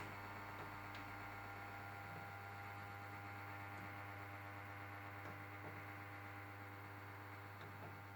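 Ariston Margherita washing machine humming steadily during its main wash, a low even electrical hum with a few faint ticks.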